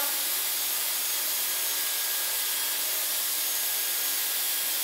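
Dyson Airwrap hair styler blowing hot air through its curling barrel on high heat and the middle setting: a steady airy hiss with a faint high motor whine.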